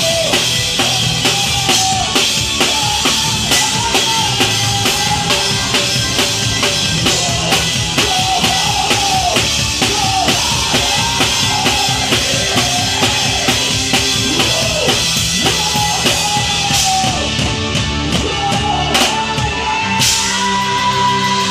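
A live rock band plays, with the drum kit up front: fast, steady kick, snare and cymbal playing under a lead melody that bends up and down in pitch. Near the end, a high note is held.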